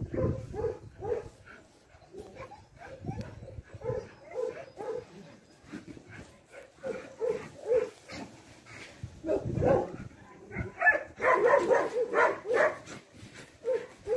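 A dog barking repeatedly in runs of short barks, with a louder, busier stretch a little past the middle.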